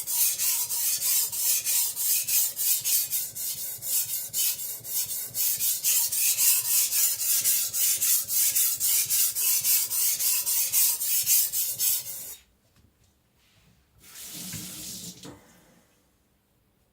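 Stainless-steel Chinese cleaver blade stroked back and forth on a whetstone, an even rhythm of about three gritty scrapes a second, while the relief bevel and edge are ground toward a burr. The strokes stop about twelve seconds in; a single short scrape or rub follows a couple of seconds later.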